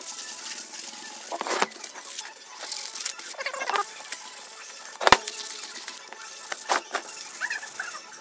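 Machined aluminum pieces being handled and set down on a workbench: scattered scrapes and clinks, with one loud knock about five seconds in.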